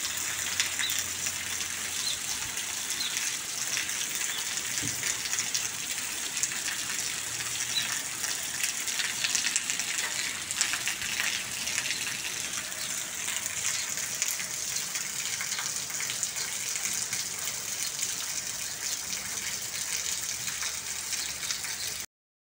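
Steady rain falling on a street and paving: a dense even hiss with many close drop ticks. It breaks off abruptly near the end.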